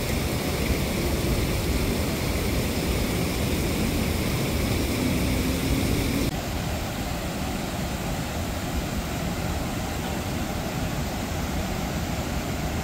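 Steady rushing of water pouring over a dam's weir and down its stone steps, with no distinct events; it shifts in tone and drops slightly about six seconds in.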